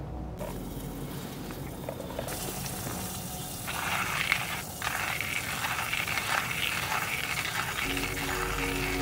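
Hand-cranked stainless-steel coffee grinder crushing beans: a dense, gritty crackle of many small ticks that starts about four seconds in, breaks off briefly, and keeps going as the crank turns.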